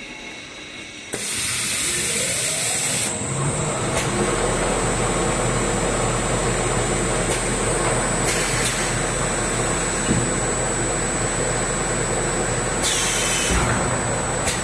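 Automatic ABS sidewall milling machine for snowboards and skis running: a loud hiss of air about a second in, then the machine runs steadily with a high, steady whine and a low hum, with two more short hisses of air later on.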